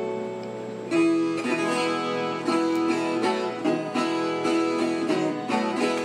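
Background music played on plucked guitar, a light picked melody that comes back in strongly about a second in after a brief lull.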